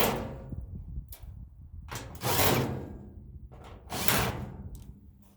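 Sheet-metal furnace parts scraping and clanking in a handful of separate bursts as the furnace is taken apart, the longest about two seconds in.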